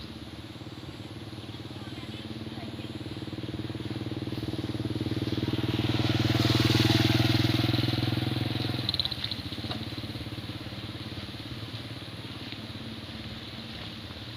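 A motor vehicle engine, likely a motorcycle, passing close by: it grows louder to a peak about seven seconds in, then fades away.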